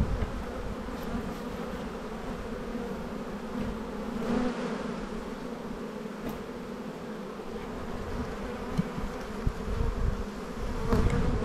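Steady buzzing hum of a crowded honeybee colony in an opened hive box, its frames covered in bees. A few soft knocks come near the end.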